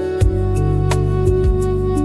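Ambient meditation music: sustained tones held over a steady low drone, with a few soft low drum beats.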